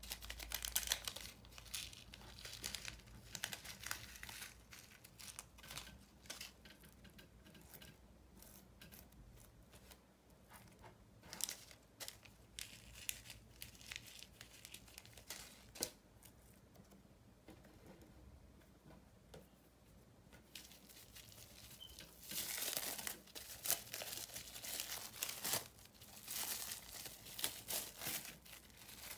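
Clear plastic wrap crinkling and rustling as it is pulled off a piece of slime, loudest over the last several seconds. Before that, fainter scattered crackles and clicks of fingers working sprinkles into white slime.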